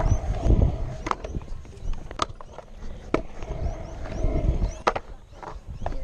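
Stunt scooter's hard wheels rolling over rough, cracked concrete with a steady low rumble, broken by a few sharp clicks about a second apart.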